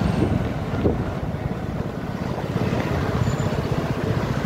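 Motorbike engine running while riding in traffic, with wind buffeting the microphone in a steady low rumble.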